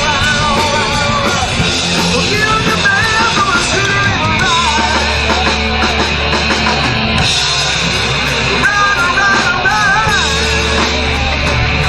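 Rock band playing loud, with a wavering, bending lead line over drums and long held low bass notes.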